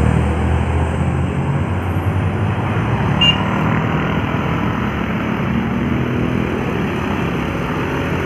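Road traffic passing: a heavy vehicle's engine drone fades over the first second or two, leaving steady road noise, with a brief sharp click about three seconds in.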